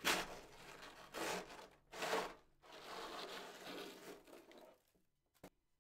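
Chunks of freezer frost crunching and scraping: a sharp burst right at the start, another about two seconds in, then a longer stretch of softer crunching that fades out, and a single click near the end.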